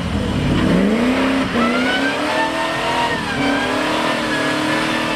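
Off-road 4x4's engine revving hard, its pitch climbing over about the first second and a half and then held high with small rises and dips.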